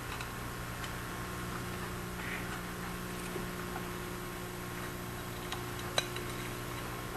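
Steady low hum with a few faint ticks and one sharp snip about six seconds in: small diagonal cutters cutting plastic tie wraps off a circuit board's cable harness.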